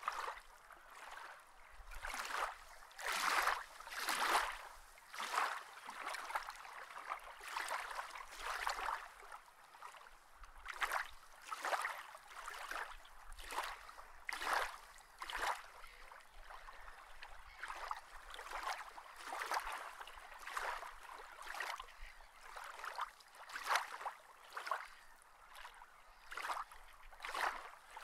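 Water sloshing and lapping in irregular surges, roughly one a second.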